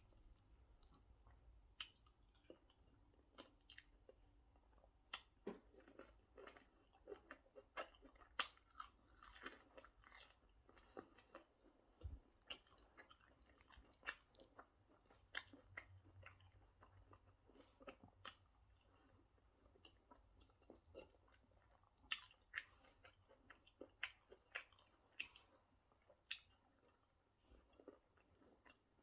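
Faint close-up chewing of pounded yam with egusi soup: wet mouth clicks and smacks at an irregular pace, one or two a second.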